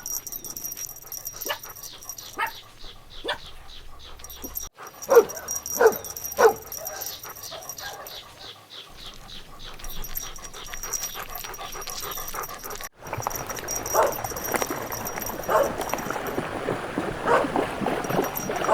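Dogs yipping and barking in short, sharp calls, in separate clips joined by sudden cuts about five and thirteen seconds in; the last stretch is busier, with calls coming quickly over a noisier background.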